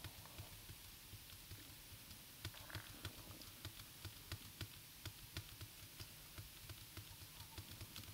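Faint, uneven clicking of a computer's keys or buttons, a few clicks a second, over a low hum.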